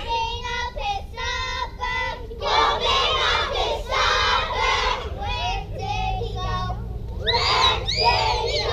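A group of children singing together in short, held syllables, then a denser stretch of many voices, with loud high shouts near the end.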